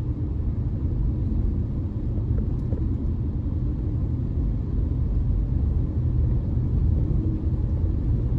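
Steady low rumble of a car driving on a wet road, heard from inside the cabin: road and engine noise at a constant pace.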